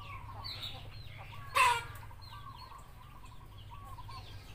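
Chickens clucking: one louder call about a second and a half in, among a run of short quieter clucks, over a steady low hum.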